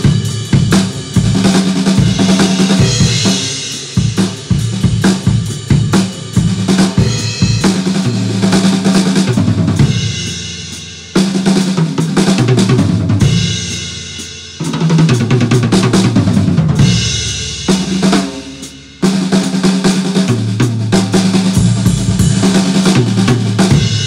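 Sonor SQ2 medium maple drum kit with Paiste cymbals played in a smooth groove: bass drum, snare, toms and cymbals. Three times the playing stops and the drums ring out and fade before the groove comes back in sharply.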